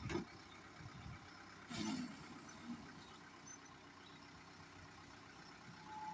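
Backhoe's diesel engine running faintly and steadily, with a short clatter about two seconds in.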